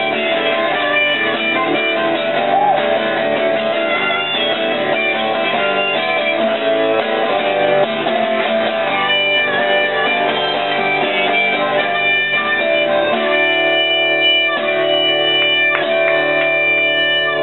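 Acoustic guitar strummed with a blues harmonica played over it from a neck rack. In the last few seconds the playing settles into long held chords as the song closes.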